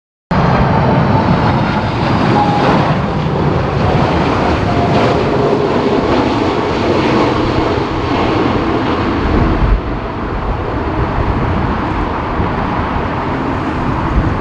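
Boeing 747-400 freighter's four jet engines running loud and steady on approach in a strong crosswind, with a faint whine over the roar and gusty wind rumbling on the microphone. The sound cuts in abruptly just after the start and eases slightly about ten seconds in.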